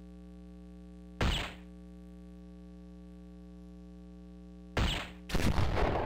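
Electronic soft-tip dartboard's hit sound effect as a dart lands in the bull, about a second in and again near five seconds. The second hit is followed at once by the machine's louder, explosion-like 'Low Ton' award effect, which rings out and fades.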